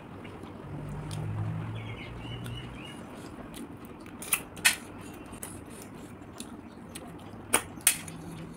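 River snails being sucked out of their shells: two pairs of sharp slurping clicks, one about halfway through and one near the end, with faint bird chirps behind them.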